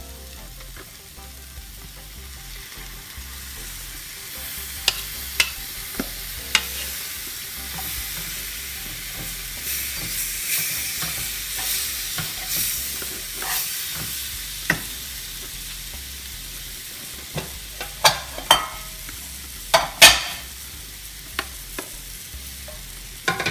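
Minced meat sizzling in a frying pan of spiced onion and tomato, stirred in with a utensil that scrapes and knocks against the pan. The sizzle swells over the first half, and the sharp knocks come in scattered clusters, the loudest about two-thirds of the way through.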